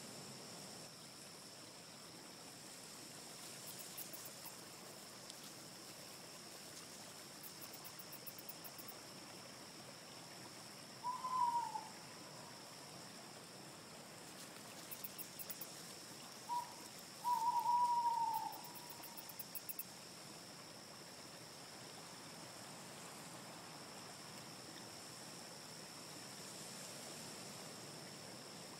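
Forest nature soundscape with a steady background hiss and a constant high drone. A bird calls loudly, once briefly about eleven seconds in and again in a longer two-part call around seventeen seconds. Faint, very high chirping trills come and go a few times.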